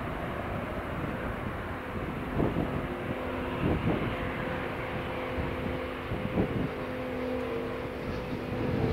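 Boeing 747 jet engines running with a steady droning whine made of several held tones, over a bed of rushing noise, broken by a few brief thumps.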